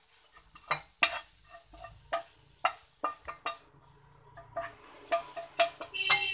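Wooden spatula knocking and scraping fried cauliflower out of a non-stick frying pan into a glass bowl: a series of separate sharp taps against the pan and bowl, with soft scraping between them and a short ringing clink near the end.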